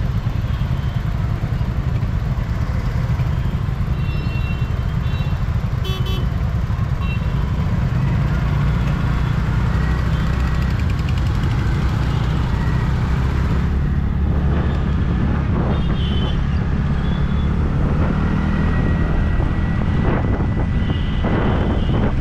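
Road traffic with a scooter engine running under it as it pulls away and gathers speed, with a few short vehicle-horn toots about four, six and sixteen seconds in.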